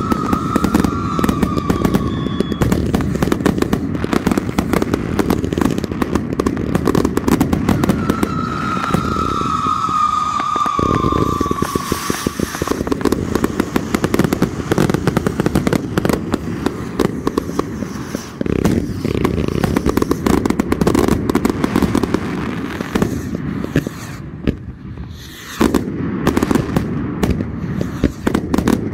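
Consumer firework cakes firing together in a finale: a dense, unbroken barrage of rapid bangs and crackle. Whistles falling in pitch cut through near the start and again about a third of the way in, and the barrage thins briefly a little before the end.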